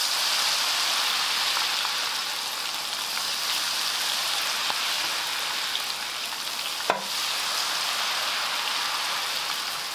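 Battered food (twigim) deep-frying in a pan of hot oil: a dense, steady sizzle. A single sharp click comes about seven seconds in.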